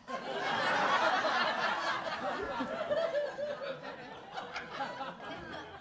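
Theatre audience laughing after a punchline, loudest in the first couple of seconds and then dying away.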